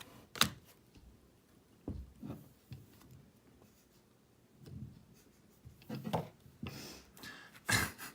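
Trading cards being handled and slid across one another: scattered light rubs and taps, with a sharper click under a second in and a few louder ones near the end.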